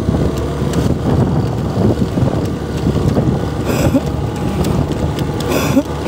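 Wind rumbling on the microphone, with faint, indistinct voices now and then.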